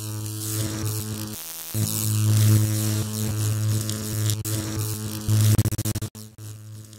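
Electrical buzz sound effect for an animated neon logo: a loud, steady mains-style hum with crackling static. It cuts out briefly about a second and a half in, then flickers in rapid stutters near the end before breaking off.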